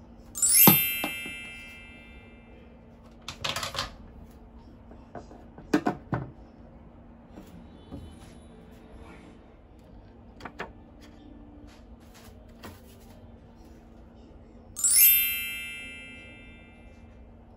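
Two identical bright chime sound effects, one about half a second in and one near the end, each ringing out for about two seconds. Between them come a few soft clicks and knocks of small plastic items being handled and set against the wall.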